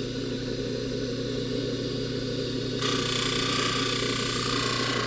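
Jeweler's bench polishing motor (buffer) running with a steady hum, with a higher hiss coming in about three seconds in as the 18 karat gold chain is worked against the buffing wheel.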